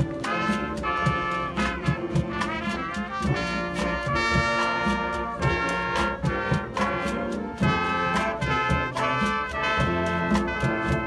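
Marching band playing at full strength: trumpets and trombones carrying sustained chords and melody lines over regular drum hits.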